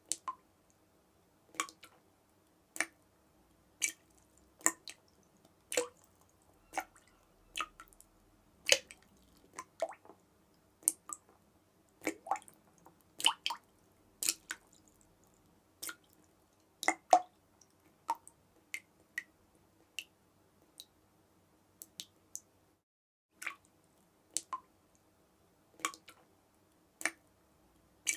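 Water dripping: single drops falling one at a time at irregular intervals, roughly once a second, over a faint steady background.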